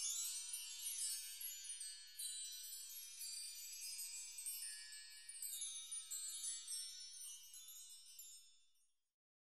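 High, shimmering tinkle of many overlapping chime-like tones, a sparkle effect that fades away to nothing about nine seconds in.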